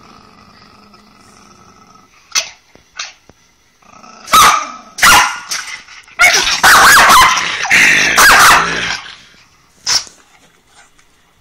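Miniature Pinscher growling low and steadily, then breaking into loud growling barks: two short yaps, two loud barks, two long bursts of barking and growling, and one last bark near the end.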